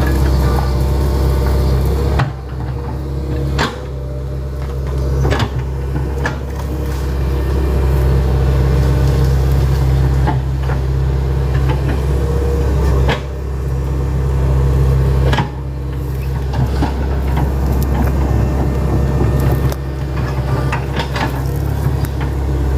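Hitachi Zaxis 110 excavator's diesel engine running steadily under working load, easing off briefly a few times, with a number of sharp knocks and cracks from the machine working among wood.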